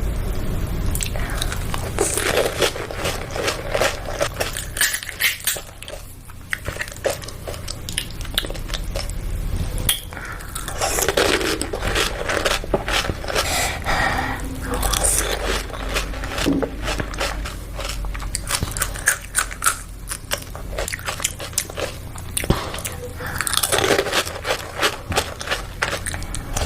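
Crisp panipuri shells being bitten and crunched, with repeated crackly crunches and chewing, over a steady low background rumble.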